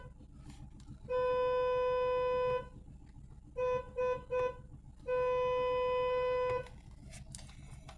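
Mercedes car horn honked in a pattern: a long honk, three quick short honks, then another long honk.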